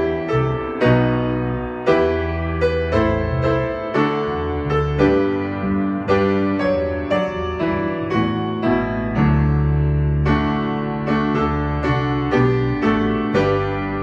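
Grand piano and bass guitar playing together: piano chords struck in a steady rhythm over long, held bass notes.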